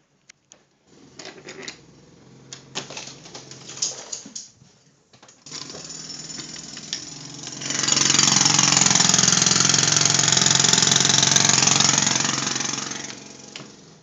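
Jackhammer hammering continuously, with scattered knocks and clicks over it at first. It is muffled early on, turns loud about eight seconds in, and fades near the end.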